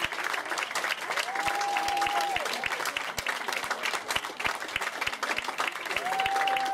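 Audience applauding with steady, dense clapping. A voice calls out twice in a long held shout, once about a second and a half in and again near the end.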